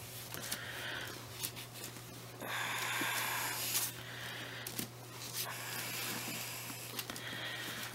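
Cloth rustling and handling sounds as pants are pulled onto a vinyl reborn doll and its clothes are adjusted, with a longer, louder rustle about two and a half seconds in. A steady low hum sits underneath.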